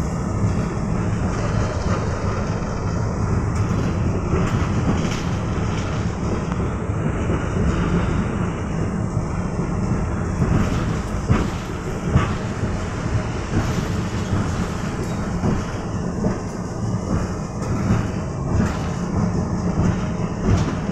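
A KTM-5 tram heard from inside the passenger cabin while it runs along the rails: a steady low running rumble from wheels and motors, with a few sharp knocks from the running gear about halfway through.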